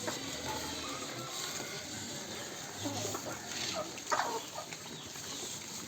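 Farm animals calling: a handful of short, pitched cries come close together a few seconds in, over a steady background hiss.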